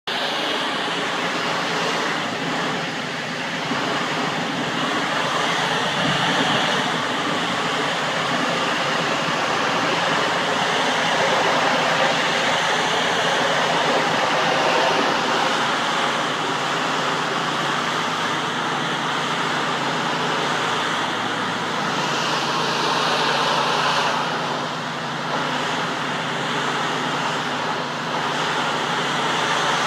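Pressure washer running: a steady motor hum under the rushing hiss of a high-pressure water spray, easing briefly near the end.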